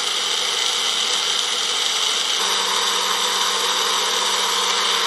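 Electric mixer grinder running at high speed, blending chopped carrot, orange pieces, ice cubes and water into juice in its jar. The motor sound is steady, with a low hum joining about halfway through.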